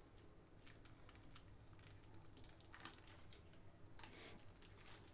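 Faint crinkling and crackling of a thin plastic bag being handled, a run of small irregular crackles with two louder rustles about three and four seconds in.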